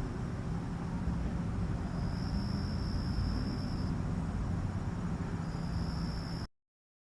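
Steady low rumbling background noise with a faint high whine that comes and goes; it cuts off suddenly near the end.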